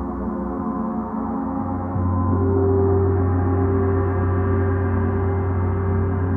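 Gong ringing, a dense wash of long sustained overtones. About two seconds in it swells louder, with a deep low hum and a brighter ringing tone above it.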